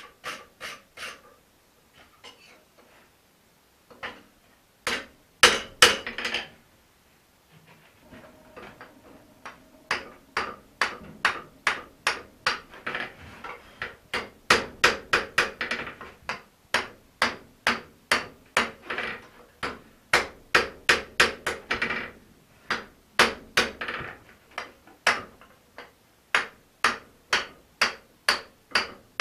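Blacksmith's hand hammer striking a hot steel axe head on an anvil. A few scattered blows come first, then steady runs of sharp strikes about two to three a second, with short pauses between runs. This is the hot forging that brings the felling axe to its final shape.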